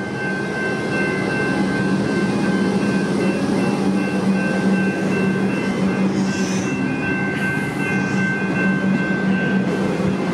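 Comeng electric suburban train running past, a steady low hum with thin high whines held throughout.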